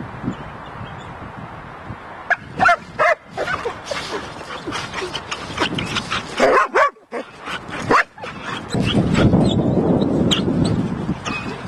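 Several Belgian Malinois dogs barking, yipping and whimpering in quick succession, starting about two seconds in. A low rumbling noise rises under them near the end.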